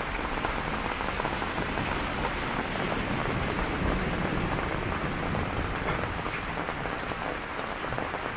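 Heavy typhoon rain falling steadily on hard wet ground, an even, unbroken hiss of rain.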